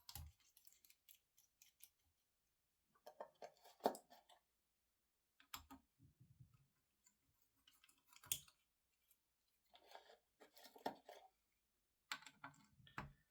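Faint, scattered clicks and scrapes of a small screwdriver backing out the screws that hold a graphics card's cooler over the GPU die, with quiet gaps between.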